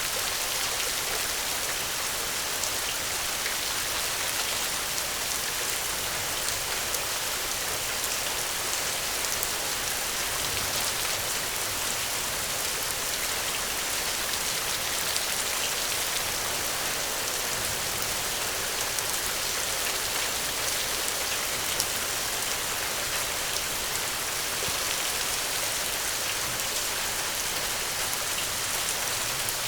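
Steady rain falling, a dense even patter of drops hitting a surface with no thunder or other sounds.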